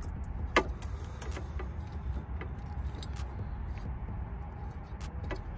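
Light metallic clicks and clinks of T-bolt hose clamps and an aluminium intercooler pipe being handled and pushed into a coupler, the sharpest one about half a second in. A steady low rumble runs underneath.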